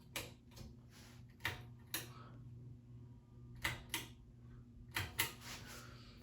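Scattered light clicks and taps, about eight of them at uneven spacing, some in close pairs, over a faint steady low hum.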